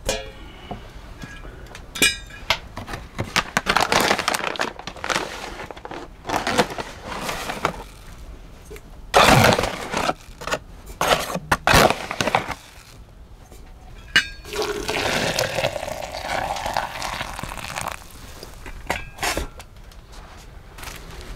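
Coffee being made in a stainless steel French press: water poured in, grounds tipped from a foil bag, and several sharp metal clinks and knocks of the pot and its lid.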